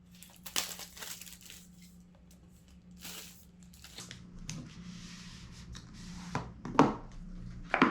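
Paper and cardboard packaging of an Apple Pencil box being handled and torn open: soft rustling, a tearing stretch about three seconds in and another midway, and a few sharp taps near the end.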